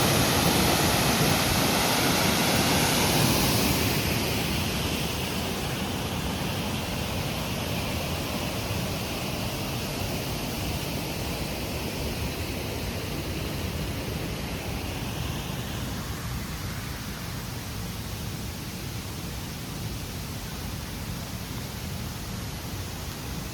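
Itaide Falls, an 8-metre waterfall, rushing steadily. The sound drops in level about four seconds in, then fades slowly.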